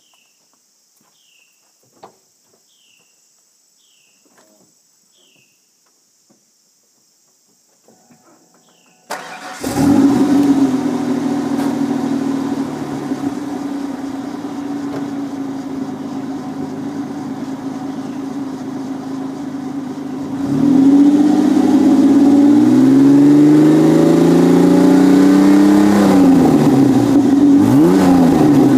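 A 1995 Ford Ranger's stock 4.0 L OHV V6 is started about nine seconds in after a quiet stretch, heard through a Thrush welded muffler and 2.25-inch pipe with a side-exit tip ahead of the rear wheel. It idles steadily. From about twenty seconds in it is revved: one long rise and fall in pitch, then quicker blips near the end.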